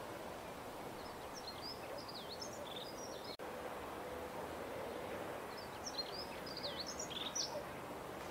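A songbird singing two short phrases of rapid high-pitched notes with quick downward sweeps, a few seconds apart, over a steady background hiss.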